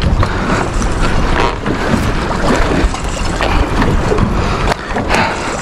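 Wind rumbling on the microphone over a steady wash of sea and boat noise, with a few knocks.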